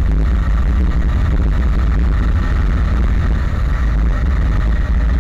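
Yamaha Sniper 150 single-cylinder motorcycle cruising at steady speed, engine running evenly with no revving, under a heavy low rumble of wind on the microphone.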